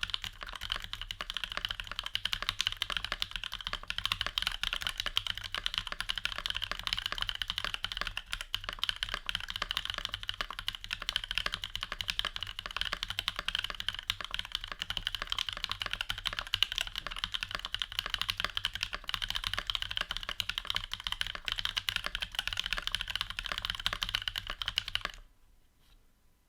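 Fast, continuous typing on a Discipline V1 65% mechanical keyboard with lubed Novelkeys Cream linear switches, GMK keycaps and an acrylic sandwich case with POM plate. The keystrokes stop suddenly about 25 seconds in.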